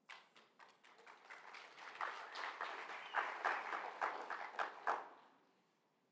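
Audience applauding, faint and distant. The clapping starts about a second in, builds, and stops after about five seconds.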